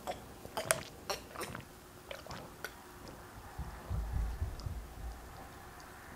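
Drinking water from a plastic water bottle: a few sharp clicks and crinkles in the first three seconds, then low gulping swallows about four seconds in.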